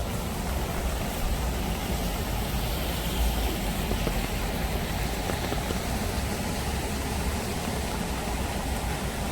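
Steady wash of monsoon rain and a rain-swollen stream flowing, with a constant low rumble underneath.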